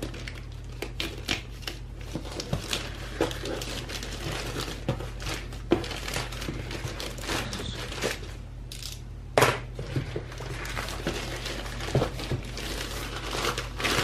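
Plastic courier mailer crinkling and tearing as it is slit with a box cutter and pulled off a cardboard box: a dense run of irregular rustles and crackles, the sharpest about 9 seconds in.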